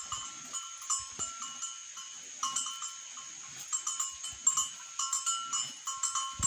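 Small metal bell on a cow clanking over and over, a few rings a second with two alternating pitches, then stopping abruptly near the end.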